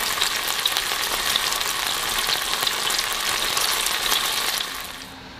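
Chicken thigh frying in hot oil in a nonstick pan: a steady sizzle dotted with many small crackling pops. It fades down sharply near the end.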